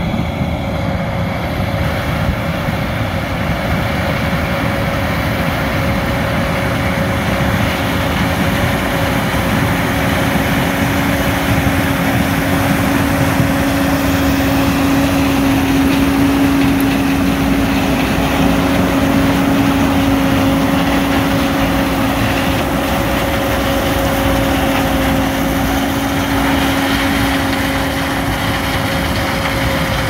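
John Deere combine harvesting corn: engine and threshing machinery running with a steady droning hum, the corn head taking in the stalks. The sound grows a little louder around the middle as the machine comes closest.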